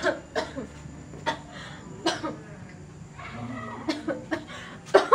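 A sick woman coughing repeatedly, short sharp coughs coming every second or so.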